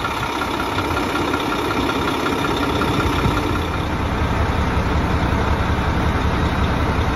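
A 2011 Mack semi truck's diesel engine idling steadily.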